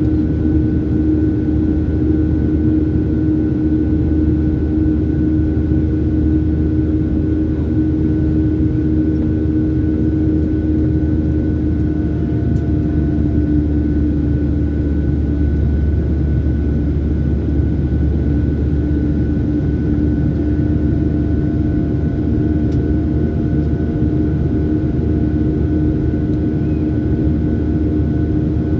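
Jet airliner's engines and airflow heard from inside the passenger cabin during the climb after takeoff: a steady low rumble with a constant hum and a fainter higher tone.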